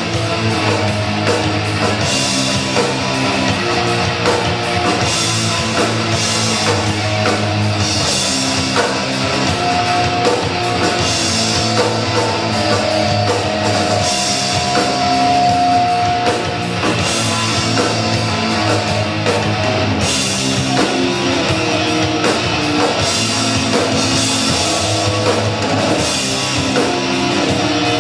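Live rock band playing loud and steady, with guitars and a drum kit; a long held note rings out about ten seconds in and lasts some six seconds.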